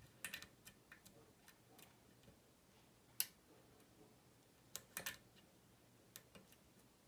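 Faint, scattered clicks and ticks of a lock pick working the pins of a Goal S five-pin lock, with a sharper click about three seconds in and a small cluster of clicks around five seconds.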